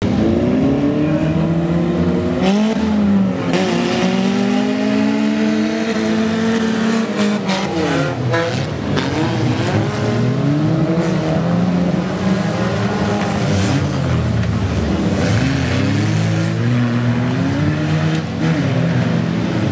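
Several old race cars' engines revving up and down at once, their pitches overlapping as they race on the track. Short harsh noise bursts come a few seconds in and again around the middle.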